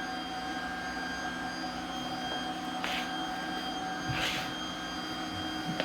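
Bobi robot vacuum running, a steady whir with a thin whine from its motor and brushes, with two brief swishes about three and four seconds in.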